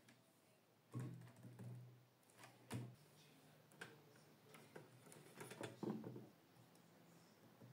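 Light clicks, taps and rattles of stationery being handled on a desk: pens knocking together and against a wire-mesh pen cup as one is drawn out. The taps come in irregular clusters, the busiest near the end.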